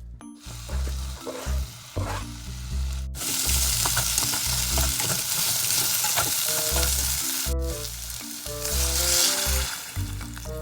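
Food sizzling and frying in a hot pan while it is stirred, loudest from about three seconds in, with a couple of abrupt cuts in the sound.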